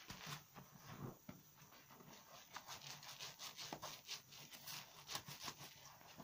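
Quiet, soft squelching of a soapy foam sponge being squeezed and rubbed against a bar of conifer soap in a basin of lather, with many small irregular wet clicks as the foam crackles.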